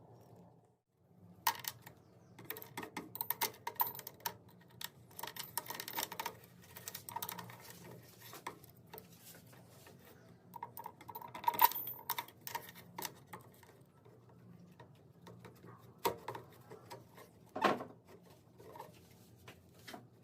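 Irregular clicks, taps and clatter of small hard objects being handled, with a few louder knocks near the middle and near the end.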